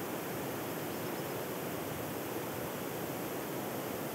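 Wind rushing steadily, an even noise with no sharp sounds or tones in it.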